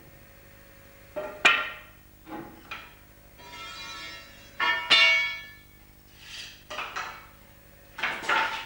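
Irregular metal-on-metal clanks and knocks, about six in all, several ringing on like struck steel, the loudest about five seconds in, from shifting a heavy lathe by hand.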